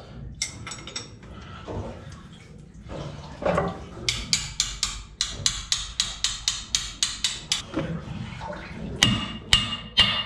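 Socket ratchet wrench clicking in an even run of about five clicks a second as the bolts of a Detroit 60 Series engine's raw water pump are undone, with soft knocks of the tool against metal before it and a few ringing metal clinks near the end.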